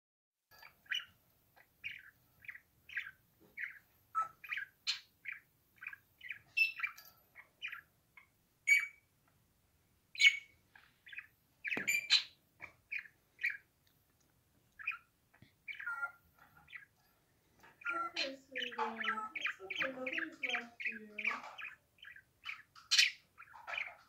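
A budgerigar singing: a long run of short, high chirps, about two a second, with a sharp click about halfway, then a faster, denser warble with lower chattering notes near the end.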